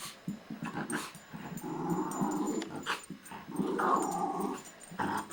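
Two dogs growling as they play-fight, in two rough stretches of about a second each, with a few short clicks between.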